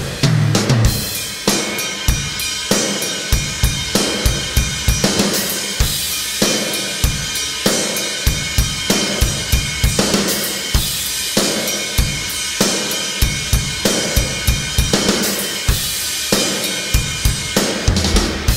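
Isolated studio drum-kit track from a rock song: a steady beat of kick drum and snare under ringing cymbals and hi-hat, with no other instruments, and a heavy low drum hit just after the start.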